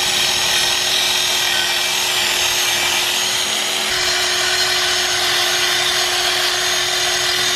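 Cordless drill spinning a bristle brush against the metal barrel of a three-piece wheel, scrubbing off old silicone sealant. A steady motor whine under a continuous rough scraping hiss.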